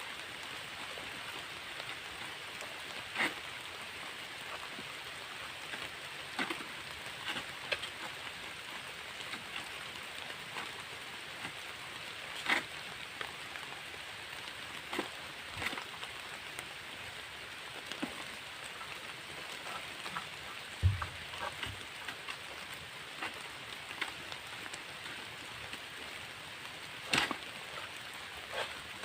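Steady rain falling, with scattered sharp taps and knocks throughout and a brief low thud about two-thirds of the way through.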